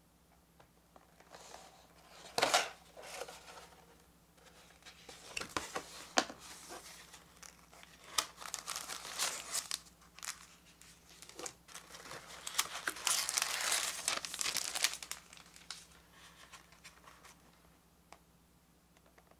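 Thin plastic film crinkling and rustling in irregular bursts as it is peeled off a plastic bento tray, with a sharp crackle about two seconds in.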